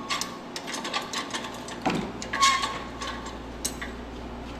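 Quick irregular metallic clicks and clinks of hand tools on bolts, like a ratchet wrench and spanner, busiest in the first second and a half, with a single click later.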